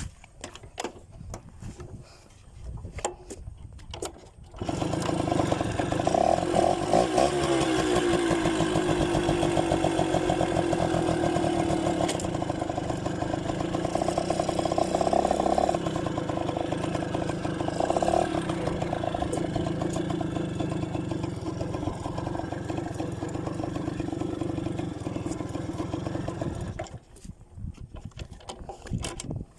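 Yamaha V50's two-stroke single-cylinder engine, quiet with a few clicks at first, then coming in suddenly about four seconds in and running steadily, with a brief rise and fall in pitch soon after, before dropping away near the end.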